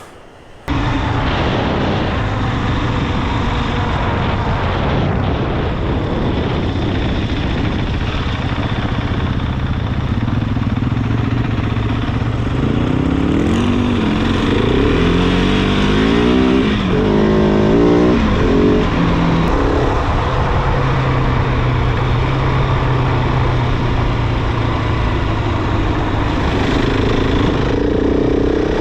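Adventure motorcycle being ridden, its engine running steadily under a constant rush of noise. It starts abruptly about a second in, and midway through the engine pitch rises and falls several times as it revs and shifts.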